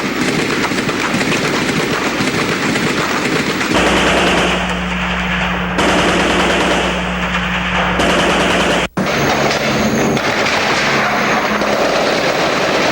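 Sustained automatic machine-gun fire from an archival combat recording, dense and continuous. A steady low hum runs under it for several seconds in the middle, and the sound drops out for an instant about nine seconds in before the gunfire resumes.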